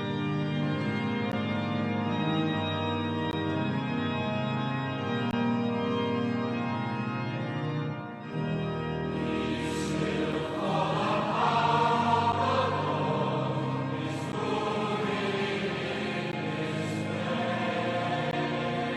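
Sacred song: sustained organ chords, then voices singing over the organ from about halfway through.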